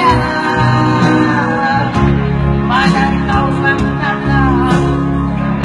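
Backing music for a pop ballad, with guitar over sustained bass notes that change twice, during an instrumental break between sung lines.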